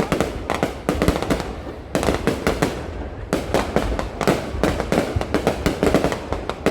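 Fireworks going off: a dense, irregular run of sharp bangs and crackles that never pauses.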